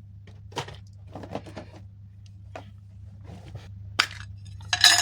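Small clicks, taps and scrapes of tools and tiny parts being handled while a replacement battery is fitted into an AirPod, with a sharp click about four seconds in and a louder scraping rattle near the end, over a steady low hum.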